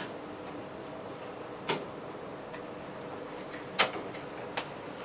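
Hitachi elevator car standing at a floor between announcements: a steady hum with four sharp clicks, the loudest about four seconds in.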